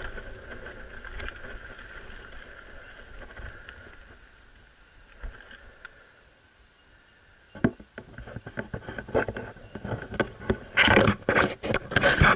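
Mountain bike rolling on a dirt track and slowing until it is nearly quiet about halfway through. Then comes a run of sharp clicks and knocks that grows, with the loudest hits near the end.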